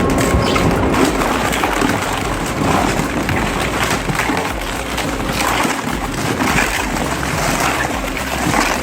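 Industrial shredder grinding material: a loud, irregular crunching and rattling noise that surges unevenly.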